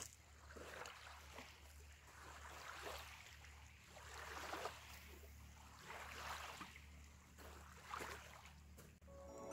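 Faint small waves lapping at a pebble lake shore, in soft swells every second or so.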